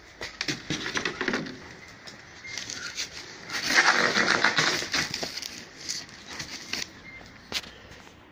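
Cardboard boxes and a plastic bag being shifted and handled, a clatter of crinkling, scraping and knocks. The rustling is loudest and most continuous a few seconds in.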